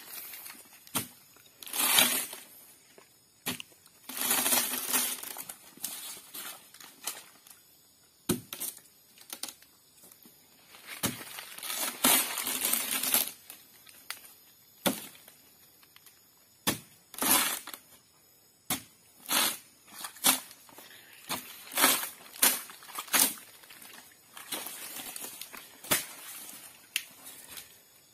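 Machete blows chopping into a felled sago palm trunk to split it: irregular sharp strikes, a few seconds apart at first and closer together near the end, with several longer, noisier stretches as the blade works through the fibrous bark and pith.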